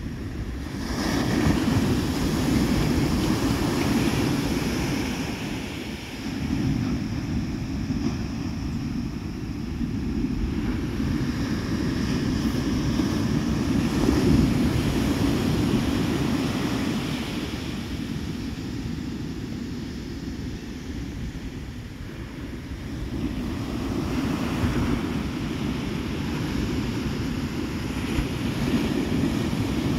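Ocean surf breaking on a sandy beach, mixed with wind buffeting the microphone; the rumbling noise rises and falls over several seconds at a time.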